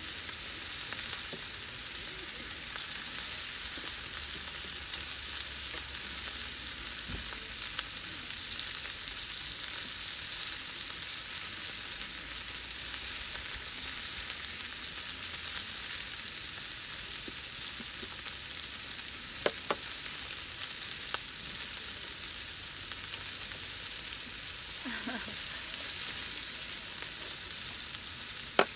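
Sliced meat frying in a pan on a portable gas stove: a steady sizzle. A couple of sharp clicks come about twenty seconds in, and a louder one near the end.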